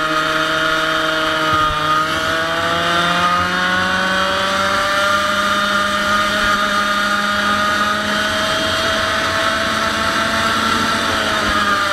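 100cc two-stroke kart engine running hard at racing revs. Its pitch dips briefly about a second and a half in, then climbs steadily for several seconds and holds near the top, starting to fall right at the end.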